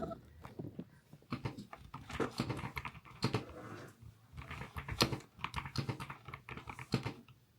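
Mechanical keyboard keys clacking in short, irregular runs of presses, with a brief pause midway: keys pressed to change the keyboard's backlight settings.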